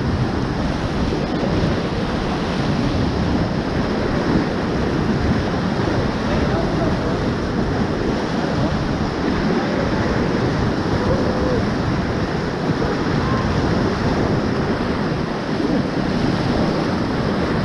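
Whitewater rapids rushing and churning steadily around an inflatable raft held surfing in a wave.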